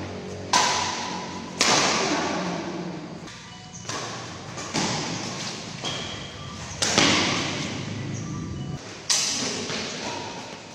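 Badminton rackets striking a shuttlecock in a fast rally: sharp cracks about every one to two seconds, each echoing in a large hall.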